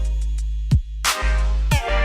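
Electronic background music with a heavy bass and a beat of kick-drum hits.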